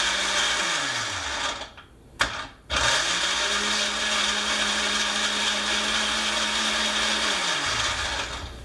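Countertop blender blending a liquid egg mixture with chunks of Spam and cilantro, run in two pulses: a short run that winds down about a second in, a click in the pause, then a longer steady run of about five seconds that winds down near the end.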